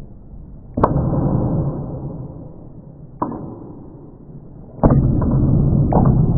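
Spring-loaded Easy-Step foot-operated door stop clacking as it is stepped on and released: a sharp snap about a second in, a lighter click near three seconds, then a cluster of clicks from about five seconds as it springs back up. Each loud snap is followed by a fading low rumble.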